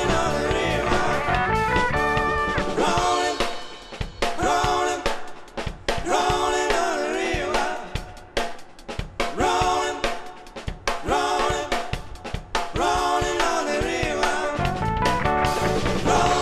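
A live band playing a song: electric guitar, bass guitar, keyboard, drum kit and a singing voice. About three seconds in, the bass and kick drum drop out, leaving voice, guitar and keys over light drum clicks. The full band comes back in near the end.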